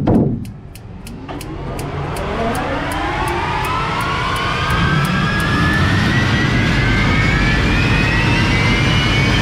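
Unlimited hydroplane's Lycoming T55 turbine engine starting up and spooling: a brief loud burst right at the start, then a whine that rises steadily in pitch and grows louder, with a regular fast ticking in the first few seconds that fades out.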